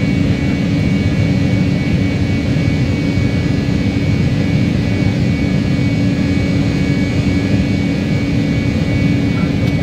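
Airbus A318 jet engines and airflow heard from inside the cabin in the climb after takeoff: a steady rumble with a steady hum over it.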